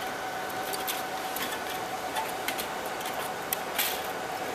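Scattered small clicks and scrapes of plastic and metal as the Dell PowerEdge 2800's riser card, with its black plastic shroud, is worked loose and lifted out of the chassis, over a steady background hum.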